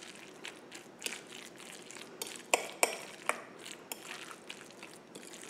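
A metal spoon stirring chunky guacamole in a bowl, scraping and clinking against the bowl in an irregular string of soft clicks, with a few sharper clinks near the middle.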